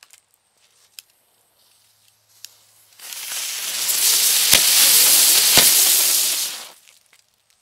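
A batch of El Toro jumping jack ground-spinner fireworks hissing as they spin, starting about three seconds in and stopping sharply about three and a half seconds later. Twice during the hiss one of them explodes with a pop, a dull thud.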